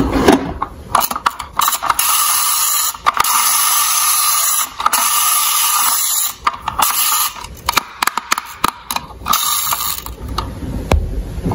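Plastic toy police truck being handled: scattered clicks and rattles of plastic toys, and several stretches of steady mechanical whirring, each a second or two long, with short breaks between them.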